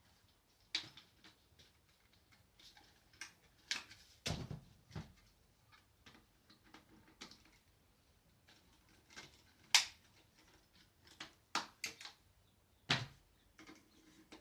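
Plastic clicks and knocks of cordless vacuum cleaner attachments being pushed onto and pulled off the tube's quick-release connector, at irregular intervals, with a heavier thump about four seconds in and a sharp snap near ten seconds.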